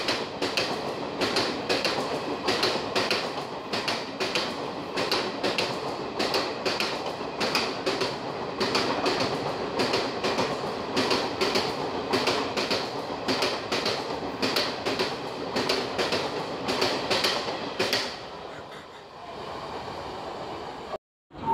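Passenger coaches of the Mumbai CST–Nagpur Duronto Express passing through at speed, their wheels clattering over the rail joints in a fast, even clickety-clack over a steady rumble. About eighteen seconds in, the last coach goes by and the sound drops away to a fainter rumble.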